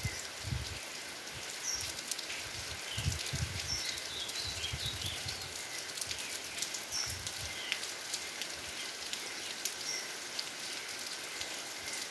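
Heavy rain falling steadily, an even hiss, with low rumbling surges in the first half. A few short, faint high chirps come through now and then.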